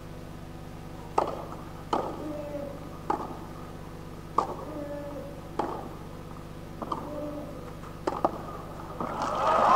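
Tennis rally on a clay court: racket strings strike the ball about seven times, roughly one hit every second and a quarter. Near the end the point finishes and crowd applause swells.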